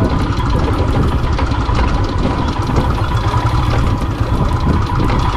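Royal Enfield single-cylinder motorcycle engine running steadily at low revs with a dense, continuous rumble.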